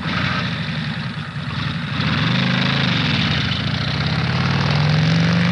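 Vehicle engine running, its pitch climbing slowly from about two seconds in.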